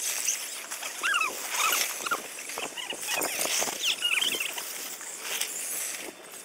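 Crunching and rustling of dry leaves, with many short, high, squeaky chirps through it.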